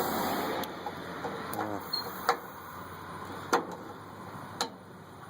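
Gas grill's push-button spark igniter clicking about five times at uneven intervals while trying to light a burner, over a hiss that fades in the first second or so.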